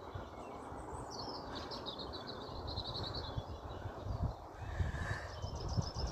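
A small songbird sings a quick twittering phrase of rapid high chirps, falling quiet for a couple of seconds before starting again near the end, over a steady low outdoor rumble with occasional dull thumps.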